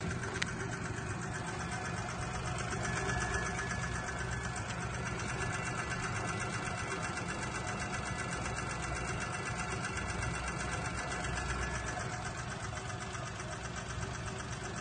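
Daewoo Matiz engine running steadily with a fast, even ticking knock, 3,500 km after a rebuild. The mechanic puts the knock down to valves needing adjustment, play in a replaced camshaft that was never bushed, and loose piston pins.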